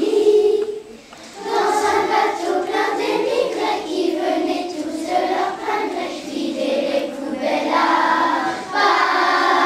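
Choir of primary-school children, about eight to ten years old, singing together, with a short pause between phrases about a second in.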